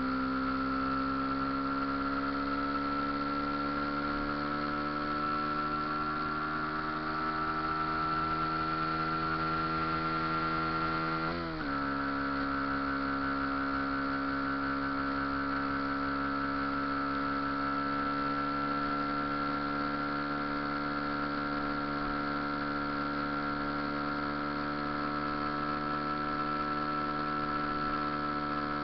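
Motorcycle engine running under way, a steady drone whose pitch climbs slowly for about eleven seconds, dips briefly, then holds steady.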